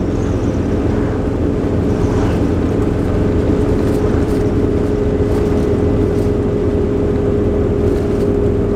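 A motorhome's engine and road noise heard from inside the cab at highway speed: a steady low rumble. A steady whine comes in about three seconds in.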